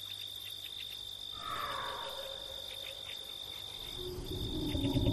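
Crickets chirping in a steady high trill, with a drawn-out falling tone about a second and a half in and a low rumble swelling near the end.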